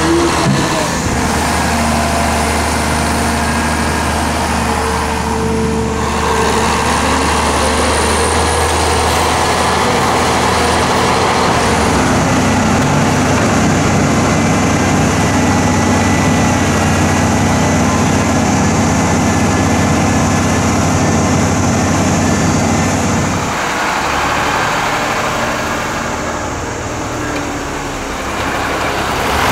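Heavy diesel engines of a Hyundai crawler excavator and a HOWO Sinotruk dump truck running steadily while soil is loaded into the truck bed. About 12 seconds in, a deeper, stronger engine sound takes over for some ten seconds, then drops back.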